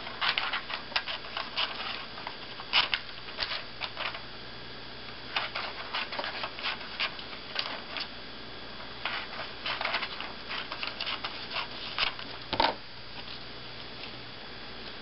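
Scissors snipping through paper in short runs of quick clicks, with paper rustling between the runs.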